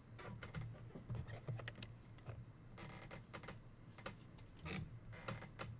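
Trading cards and their plastic sleeves and toploaders being handled and sorted, making scattered light clicks and rustles at an irregular pace, over a steady low hum.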